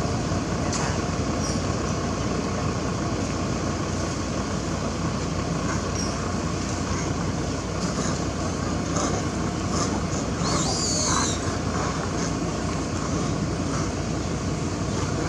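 Steady low rumble of outdoor background noise, with a few faint, short high-pitched wavering squeals about ten to eleven seconds in.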